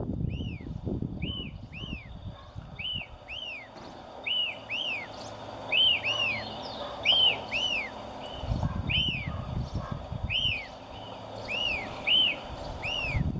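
White-crested elaenia (fío-fío) calling: a clear whistled "fío" that rises then falls, mostly given in quick pairs and repeated about every second and a half.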